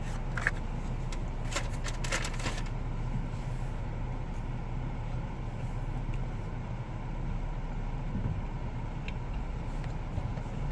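Steady engine and road noise heard inside a moving car's cabin, a low even rumble. A few light clicks and rustles come in the first three seconds.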